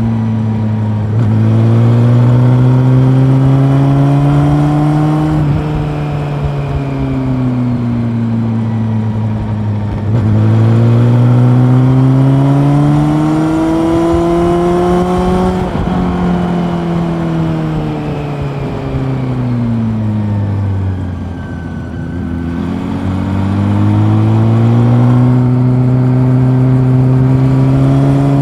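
Honda CB400 Super Four's inline-four engine heard from on board while riding, in repeated cycles: the engine note climbs steadily under throttle for several seconds, then drops and winds down slowly as the rider eases off. It does this about three times, with a light rush of wind and road noise underneath.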